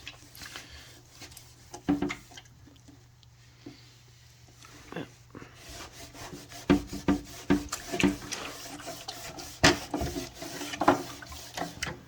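Norwex microfiber cloth scrubbing grime off the inside of an old fridge: a rasping, sandpapery scraping in repeated strokes, with a few knocks early on, getting denser and louder about halfway through. The scraping comes from the microfibers stripping the dirt off.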